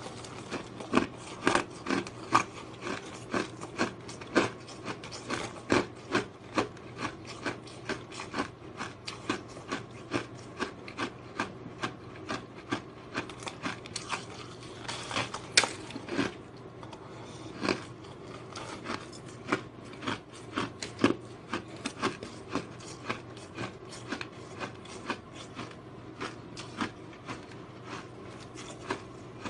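A mouthful of powdery white ice being bitten and chewed close up: sharp crunches about two a second, with a light scraping rasp between them.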